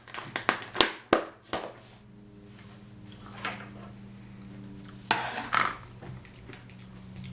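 About five sharp clicks and taps from utensils against the salad container in the first second and a half, then crunchy rustling of romaine salad, loudest about five seconds in, over a steady low hum.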